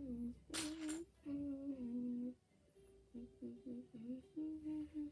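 A child humming a tune in held notes that step up and down, with a short clatter about half a second in.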